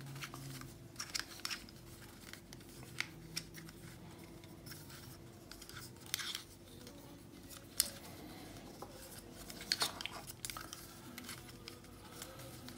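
Plastic Discrete Pyraminx twisty puzzle being turned by hand: scattered light clicks and clacks of its pieces rotating and snapping into place, with a few louder clacks among them.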